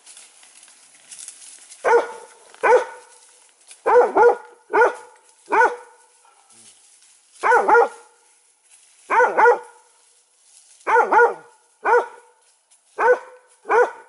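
A dog barking repeatedly in single and double barks, spaced a second or two apart, with a longer gap near the start and one around the middle.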